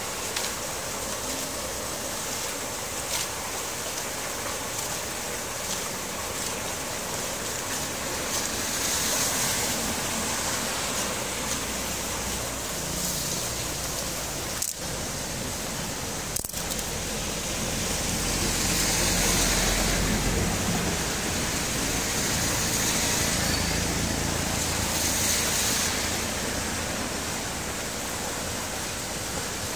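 Steady rush of rain and shallow floodwater running across a road into a roadside culvert, swelling louder for a while around the middle and again near the end.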